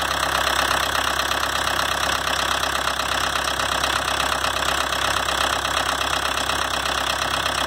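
1983 Volkswagen Quantum's 1.6-litre turbodiesel inline-four idling steadily.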